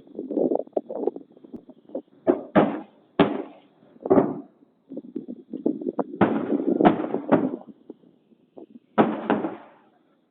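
Shelling: a rapid, irregular series of sharp explosion bangs, several in close pairs about a third of a second apart, each with a short echoing tail, from mortar and artillery rounds.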